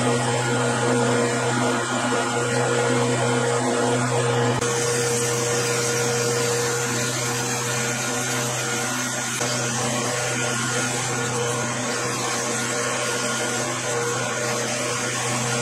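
Metal lathe running with a steady motor-and-gear hum while it turns a motorcycle axle. About four and a half seconds in the sound changes abruptly, and the lathe runs on as a twist drill in the tailstock bores into the axle's end.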